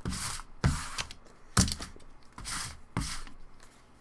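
Trading cards and their wrappers being handled on a table: about five short rustles, each starting with a light tap, dying away near the end.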